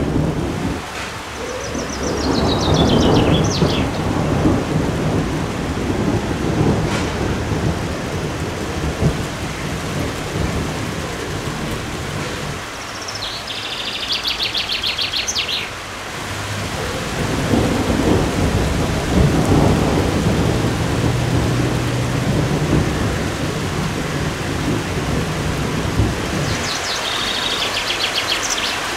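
Steady rain falling during a thunderstorm, with rolling thunder about a second in and again past the middle. A bird sings a short, high, falling trill three times: near the start, in the middle and near the end.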